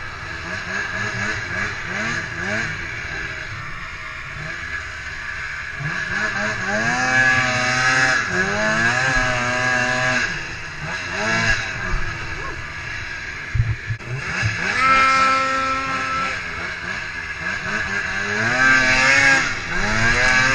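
Snowmobile engine revving up and holding at high revs three times, easing off between pulls.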